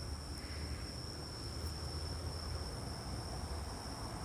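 Crickets singing in a steady, unbroken high-pitched trill, with a low rumble underneath.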